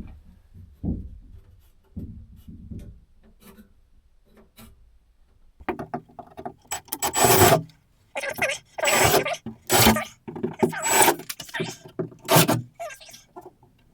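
A run of loud rubbing, scraping strokes, about eight of them through the second half, after a few soft knocks. This is the noise of shelf hardware being handled against a surface.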